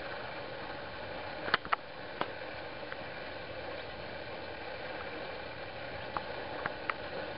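Steady hiss from a cheap digital camera's built-in microphone, with a few sharp clicks of the camera being handled as it is panned: a cluster about a second and a half in and a few more near the end.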